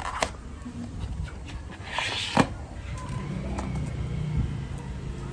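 A few sharp clicks and a short rustle of a moisturizer container being handled and opened, the loudest click about halfway through, over a low steady hum of passing traffic.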